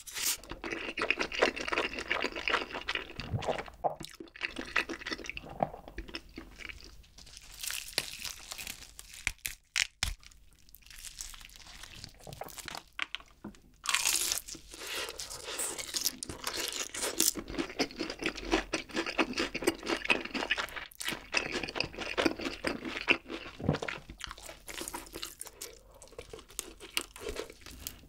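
Close-miked eating sounds: wet chewing and slurping from a bowl held to the lips. About halfway through comes a sudden bite into crispy fried chicken, followed by crunchy chewing.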